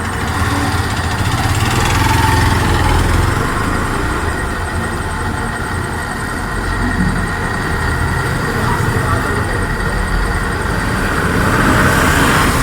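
Gas torch burning steadily with a rumbling roar, heating a front-load washing machine drum's glued spider so it will come loose.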